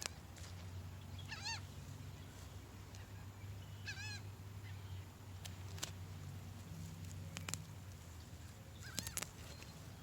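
Birds calling: short, wavering calls about a second and a half in and again about four seconds in, with fainter ones near the end, over a steady low hum.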